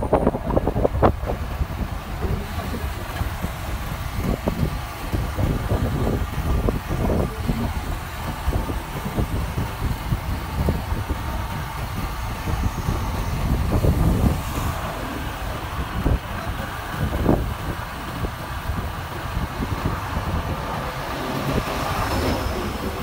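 Motorcycle riding in traffic: its engine running under a low, uneven rumble of wind buffeting the microphone.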